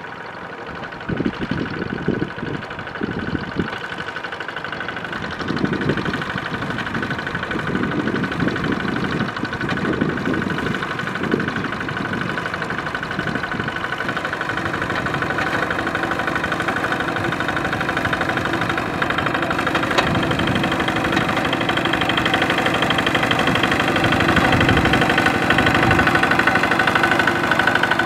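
Single-cylinder engine of a two-wheel walking tractor running with a steady knocking beat as it drags its cage wheels through a flooded paddy. It grows louder through the second half.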